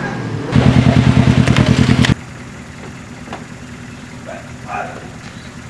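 Motorcycle engine running loud and close with a rapid, even pulsing for about a second and a half, then cutting off abruptly. After that a motorcycle idles steadily and more quietly.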